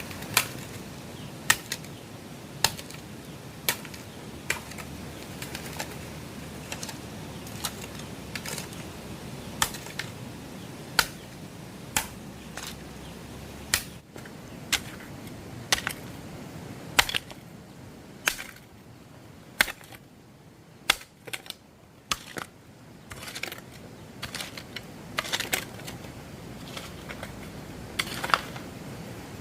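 A series of single sharp knocks, roughly one every second at uneven intervals, over a steady hiss that thins out for a few seconds past the middle.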